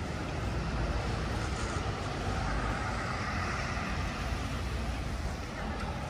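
Street traffic noise: a steady low rumble of vehicles with a hiss that swells a little in the middle.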